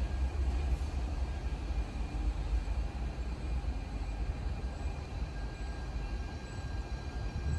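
DSB Litra SA S-train electric multiple unit moving through the station, a steady low rumble, with a faint high whine coming in about five seconds in.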